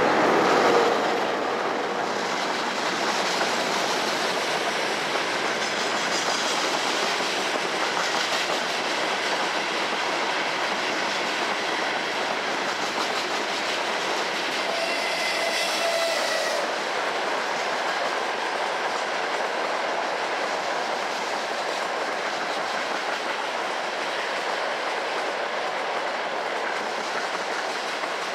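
A freight train of loaded open wagons hauled by a VL80T electric locomotive rolls past at speed, its wheels clattering steadily over the rail joints. Brief steady tones sound near the start and again about halfway through. Near the end a passenger train passes on the next track as well.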